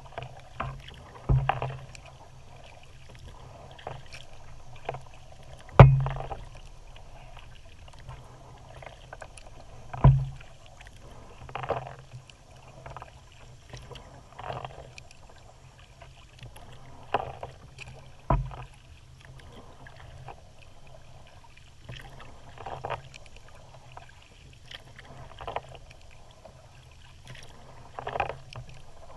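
Kayak paddle strokes in calm water, a splash and drip about every two and a half to three seconds. Four sharp thumps stand out, the loudest about six seconds in.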